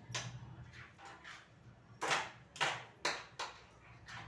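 A series of short rustling and handling noises as gold jewellery is brought out to be shown, about six strokes with the loudest about two seconds in, over a low steady hum.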